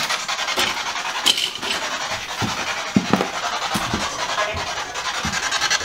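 Spirit box, a radio that sweeps rapidly through stations, giving loud static hiss chopped into fast regular pulses, with a few short low thumps scattered through.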